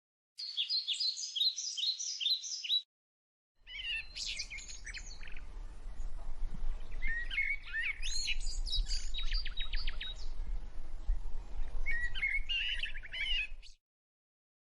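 Quaker parrots (monk parakeets) chirping: a quick run of repeated high chirps, then after a short break a longer stretch of chirps and chatter over a low rumble. The sound cuts off near the end.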